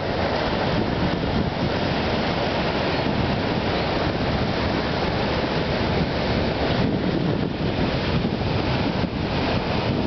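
Ocean surf breaking and washing up the beach, with wind buffeting the microphone: a steady, dense rush.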